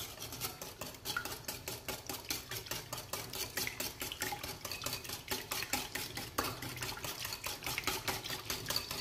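Metal wire whisk beating a thin egg-and-milk batter in a ceramic bowl, the wires tapping and scraping the bowl in a quick, even rhythm of about five or six strokes a second.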